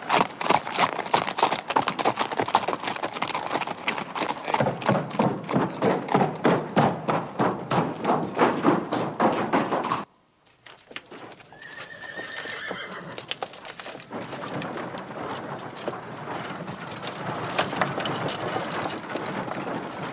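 Two horses' hooves clip-clopping on a dirt track in a steady, rhythmic beat of about four hoofbeats a second. The hoofbeats cut off suddenly about halfway through. After a moment's silence a fainter, even background sound follows, with one brief high tone.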